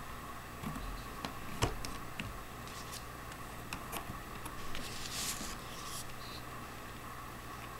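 Scattered plastic clicks and light rubbing from hands handling an action camera on a plastic suction-cup mount, with one sharp click about a second and a half in and a brief scraping rustle around five seconds in, over a steady low hum.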